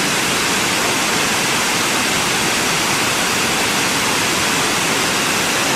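Waterfall rushing: a loud, steady, even rush of falling water.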